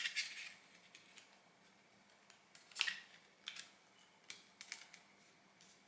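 Scattered light clicks and short scrapes of the keyboard ribbon cable being worked into its zero-insertion-force connector on a MacBook Pro A1502 logic board. The sharpest click is about three seconds in.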